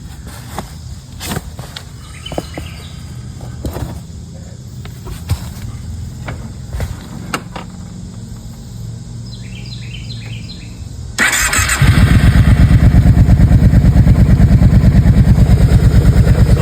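Scattered small clicks and knocks, with a few short bird chirps near the middle; then, about eleven seconds in, the Kawasaki Prairie 700 ATV's V-twin engine is cranked by the starter, catches at once and runs at a steady idle with an even pulsing exhaust. It is the first start after the oil change, run to fill the new oil filter and check for leaks.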